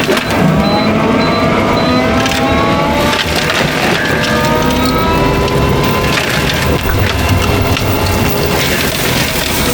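Fecon forestry mulcher head grinding brush and wood, with the machine's whine rising slowly in pitch over the first few seconds.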